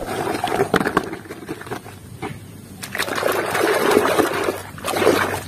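Water sloshing and splashing in a basin as a hand scrubs a mud-coated plastic toy through soapy water. It comes in two bouts, the first over the opening second or two and the second from about three seconds in until shortly before the end, with a few light clicks.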